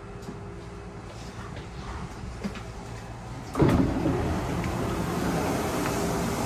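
Busan Metro Line 4 rubber-tyred train running. About three and a half seconds in, the running noise jumps suddenly louder and stays loud.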